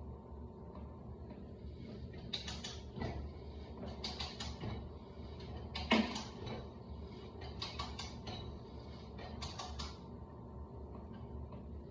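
Manual ratcheting pipe threader cutting threads into black steel pipe: clusters of ratchet clicks roughly every second and a half as the handle is pumped down and back. The loudest knock comes about six seconds in.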